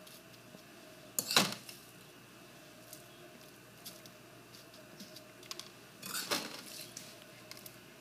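A metal spoon clinking and scraping against a pie dish while crumb topping is spread over a pie, with two louder clatters, about a second in and about six seconds in, and light ticks between.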